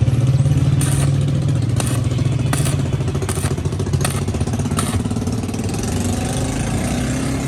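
Motorcycle engine running at a steady idle, its note rising slightly near the end, with several short clicks or knocks over it.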